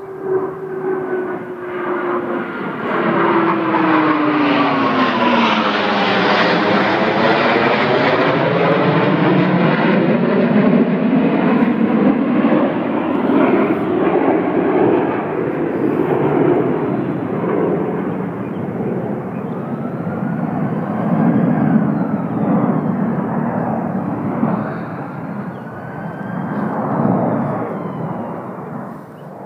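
Blue Angels F/A-18 Hornet jets passing low overhead: a loud jet roar that sweeps down in pitch during the first few seconds as they go by, then rumbles on and fades near the end.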